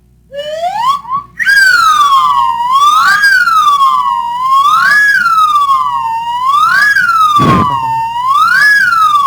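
Wailing siren sound effect of the police-car kind: it winds up in pitch, then cycles with a quick rise and a slower fall about every two seconds. A brief thump sounds about seven and a half seconds in.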